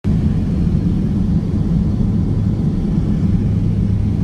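Steady low rumble of a private jet's engines and rushing air, heard inside the cockpit while flying low at about 120 mph.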